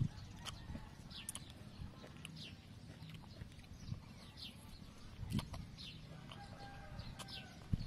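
Eating sounds: chewing and a fork clicking and scraping on a steel plate, with short knocks. Short high chirps from birds repeat in the background.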